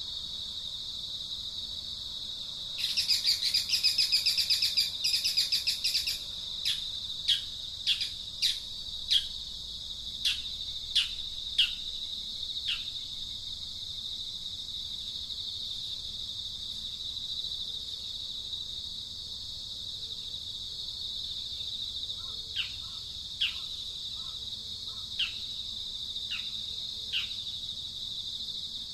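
Steady high-pitched drone of insects, with a louder, rapid buzzing stretch from about three to six seconds in. Over it a bird calls with short notes that fall in pitch, about one or two a second, then again in a second run near the end.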